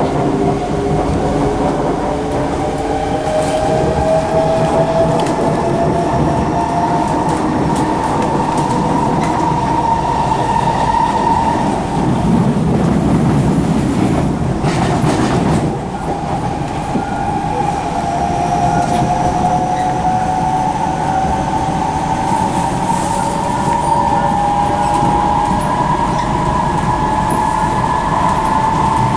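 Two Singapore MRT trains, a C151C and a C151A, heard from inside the cars while running between stations. The traction motors give a whine that slowly rises in pitch as the trains gather speed, over a steady rumble of wheels on rail. The rumble swells for a few seconds near the middle.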